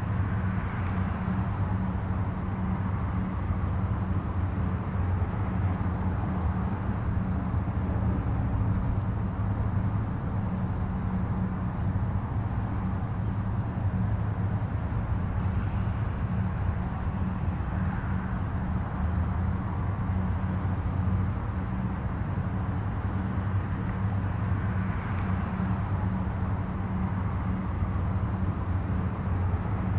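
Distant highway traffic: a steady low rumble with a hiss above it, swelling faintly now and then as vehicles pass.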